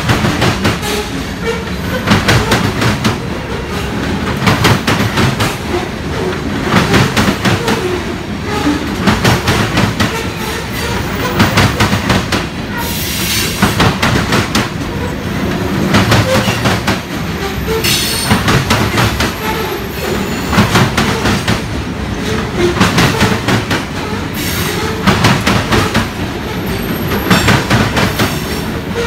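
Covered hopper cars of a Union Pacific grain train rolling past, their wheels clicking over rail joints in clusters about every two seconds over a steady rumble. Brief high wheel squeals come a few times.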